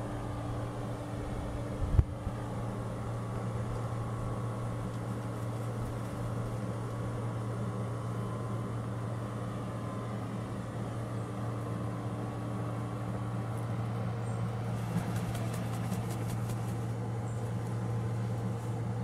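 Steady low machine hum, unchanging throughout, with one sharp knock about two seconds in and a brief patter of faint ticks near the end.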